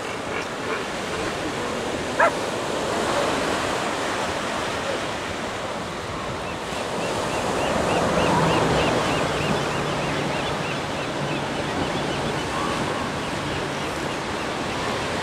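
Pacific surf washing onto a sandy beach: a steady rushing noise that swells slightly near the middle.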